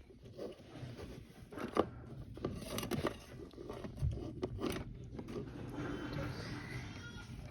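Kinetic sand being scooped and packed into a small plastic mold by hand: soft scraping and crunching with scattered light clicks of plastic.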